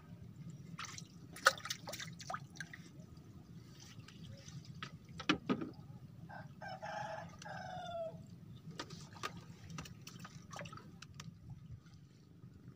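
A rooster crows once, about six and a half seconds in, the call ending in a falling note. Sharp clicks and knocks from fishing rods and reels being handled come and go, the loudest about a second and a half in and again around five and a half seconds in.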